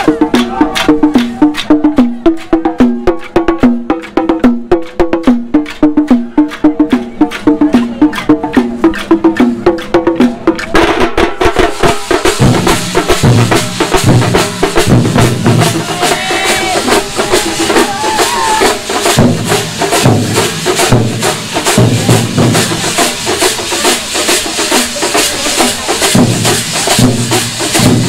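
A thambolam troupe of large stick-beaten drums playing a fast, driving rhythm together. About eleven seconds in, the pattern changes to heavy, low booming strokes in groups under a brighter, noisier layer.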